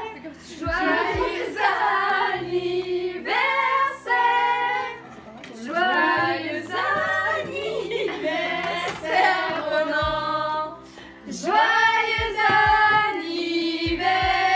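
A song with female singing over a steady instrumental backing.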